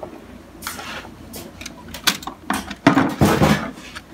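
Plastic clicks and knocks from parts being handled inside a laser printer, with a louder scraping clatter about three seconds in.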